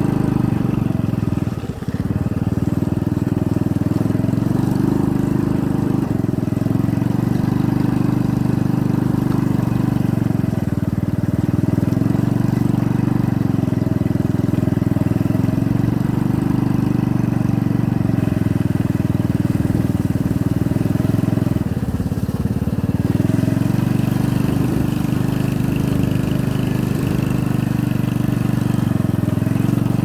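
Motorcycle engine running steadily at low, even speed, heard from on board the bike, with a brief dip in loudness about two seconds in.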